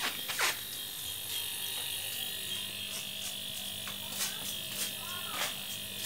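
Salvaged refrigerator compressor running as an air pump, inflating a pool: a steady electric hum, with a few brief squeaks over it.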